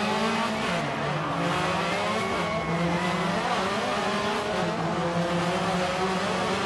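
Subaru Impreza WRX STI rally car's turbocharged flat-four engine revving hard as the car accelerates, the pitch climbing and dropping several times as it runs up through the revs.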